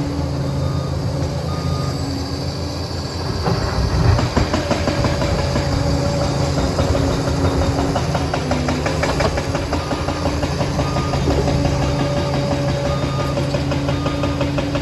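Liebherr 746 crawler dozer's diesel engine running under load with the clatter of its steel tracks, the engine note rising about four seconds in. Short, evenly repeated beeps of a reversing alarm sound at the start and again near the end.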